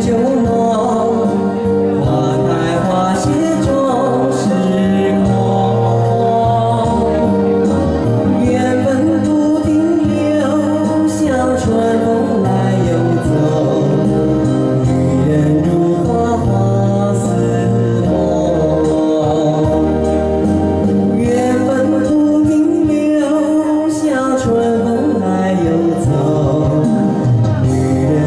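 A man singing a slow ballad into a handheld karaoke microphone over a karaoke backing track, his amplified voice carried along by a continuous instrumental accompaniment.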